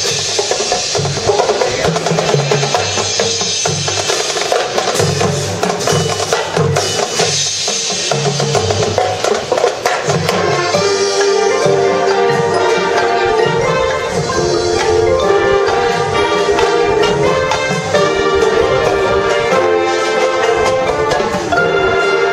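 Marching band playing. Drums and mallet percussion carry a driving rhythm, and about ten seconds in the brass and woodwinds come in with loud sustained chords over it.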